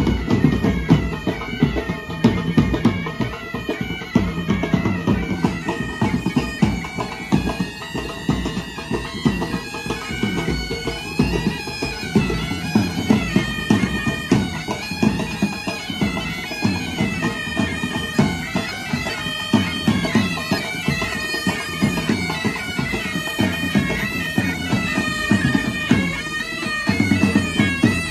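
A pipe band's bagpipes playing a tune together, the melody moving continuously over the pipes' sound.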